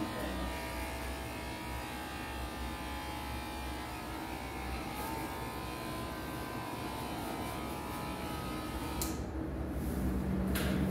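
Corded electric hair clipper running with a steady buzz as it cuts hair, with a sharp click about nine seconds in.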